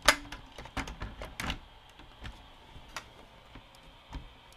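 Metal and plastic clicks and knocks as a sheet-metal bracket is pushed down and seated onto a VCR's tape mechanism: one sharp knock at the start, a quick run of clicks around one to one and a half seconds in, then a few fainter ticks.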